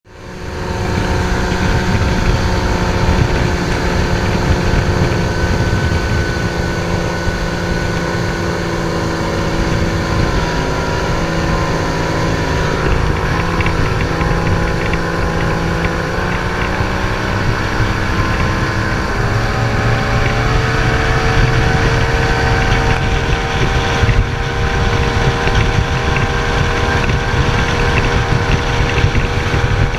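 Outboard motors on small racing boats, a Yamaha against an OMC, running flat out, with wind buffeting the microphone. The engine pitch sags about halfway through, then climbs and holds high.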